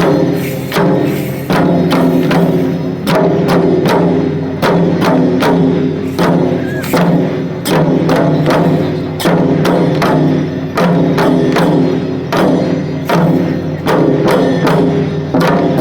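Taiko drums accompanying a Sanuki lion dance, struck in a quick, driving rhythm of sharp hits over a continuous ringing background.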